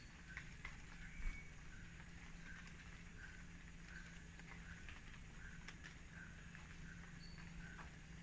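Faint footsteps on a concrete walkway, about two steps a second, over a steady low hum, with one louder thump about a second in.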